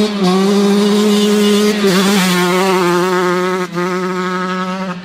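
KTM 125 SX single-cylinder two-stroke motocross engine held at high revs under way, a steady high buzz with a slight wavering in the note from about two seconds in.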